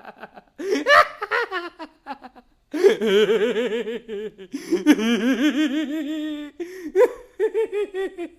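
A person laughing for a sound-effect recording. It starts with short chuckles, then two long stretches of wavering, pulsing laughter, then a few more short bursts near the end.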